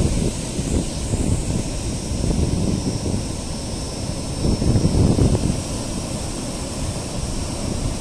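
Strong wind buffeting the microphone over rough surf breaking on a sandy beach, the sea whipped up by the southwest monsoon. A louder gust comes about halfway through.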